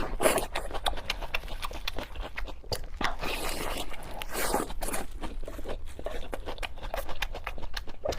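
Close-miked chewing of pork belly and green vegetables: a fast run of wet smacking and clicking mouth sounds.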